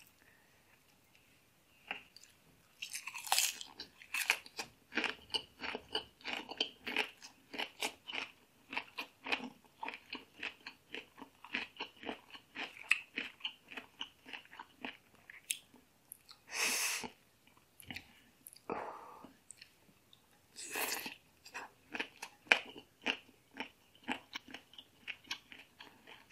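Close-up crunchy chewing of green papaya salad and raw leafy vegetables, about three chews a second, starting a couple of seconds in. A few louder bursts are heard between the chews.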